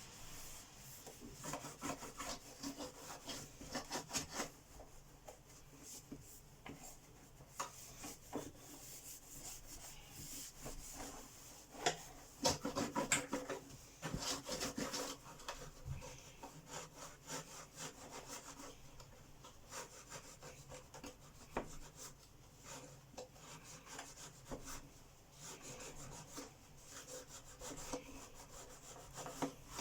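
Hand scrubbing and wiping of an Electrolux 612 upright vacuum cleaner's body and dust box: irregular runs of short rubbing strokes, loudest in a busy stretch in the middle.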